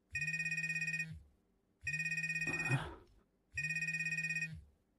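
Smartphone ringing with an incoming call: three rings, each a fast trill about a second long, with short pauses between.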